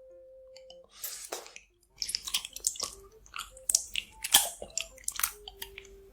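Close-miked ASMR eating: bites and crunchy, crackling chewing of food, starting about a second in as a quick run of sharp crackles.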